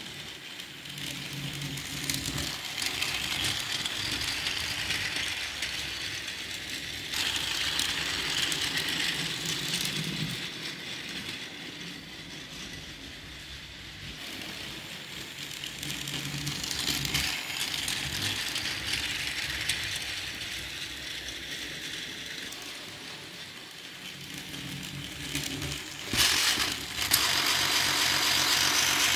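Battery-powered toy train running on its track: the small electric motor whirs and the wheels rattle over the rails. The sound grows louder and fades again several times as the train passes close by, with a louder stretch near the end.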